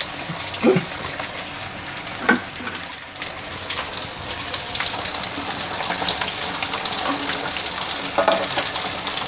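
Flour-coated chicken pieces deep-frying in a wok of hot oil: a steady crackling sizzle that grows louder from about four seconds in. A few knocks come from the spatula against the wok as the pieces are stirred.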